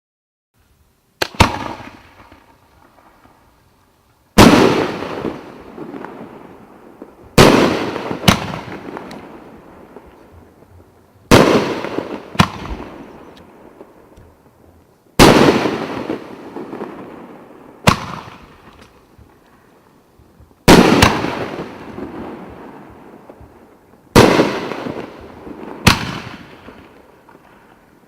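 Consumer fireworks battery (cake) firing: about a dozen sharp bangs spaced a few seconds apart, starting about a second in, each trailing off slowly.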